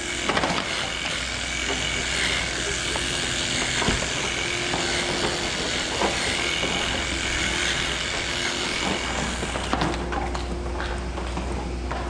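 Electric clippers buzzing steadily as they trim the hair of a cow's tail switch, stopping a couple of seconds before the end. A low steady hum runs underneath, with a few sharp knocks.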